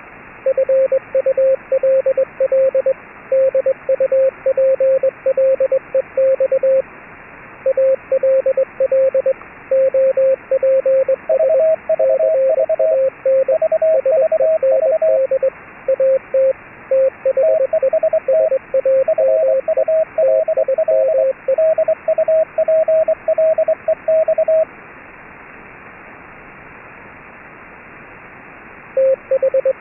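Morse code (CW) keyed as a steady tone of about 550 Hz in dots and dashes, over a hiss of HF radio static. About 11 seconds in, a second, higher-pitched Morse tone joins and the two overlap until about 24 seconds in. Then only the static is left until the lower tone resumes near the end.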